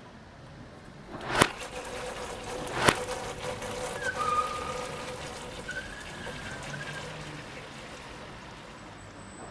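Two sharp cracks about a second and a half apart, the first rising out of a short swell, followed by a steady hum with a few faint high wavering tones.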